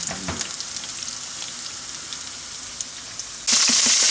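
Chopped shallot sizzling in olive oil in a non-stick frying pan, a steady hiss with light crackles. Near the end it turns abruptly to a much louder sizzle, with a few knocks, as morel mushrooms go into the hot pan.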